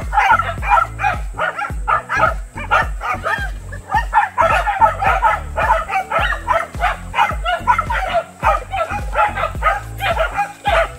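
Corgis barking and yipping in quick, repeated calls, over background music with a steady bass beat.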